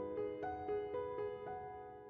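Soft background music with piano or electric-piano notes, fading away toward the end.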